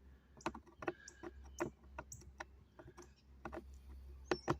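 Irregular sharp clicks and ticks of a screwdriver working a large screw out of a toy's packaging.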